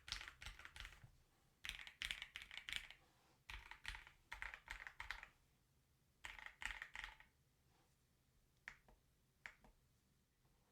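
Typing on a Keychron Q6 Max mechanical keyboard with Gateron Jupiter Red linear switches and PBT Cherry-profile keycaps, in four quick bursts of keystrokes. Near the end it slows to two single key presses.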